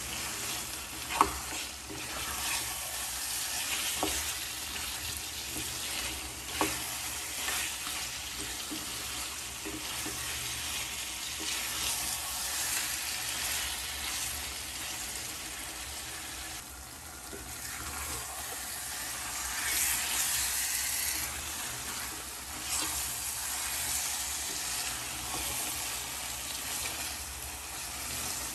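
Mutton pieces in tomato and spice masala sizzling in a kadhai while a wooden spatula stirs and scrapes through them, with a few sharp knocks of the spatula against the pan, the loudest about a second in. This is the bhuna stage, the meat frying with the tomatoes until the masala cooks through.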